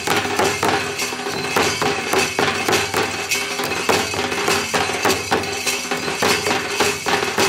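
Santal festival drum ensemble: large bowl-shaped tamak kettledrums struck with sticks together with a cylindrical two-headed drum, beaten in a fast, steady dance rhythm with sharp, clanking strokes.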